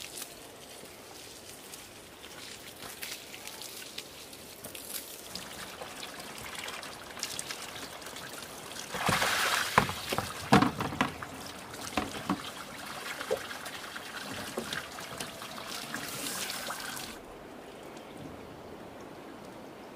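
Water trickling and pouring, with a louder stretch of sharp knocks about halfway through; the sound drops away suddenly near the end.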